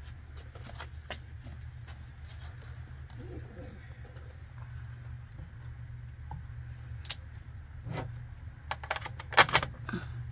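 Small metal clinks and taps of a bolt and a battery cable's ring lug being handled and fitted onto a lithium battery's terminal, with a louder cluster of clicks near the end, over a steady low hum.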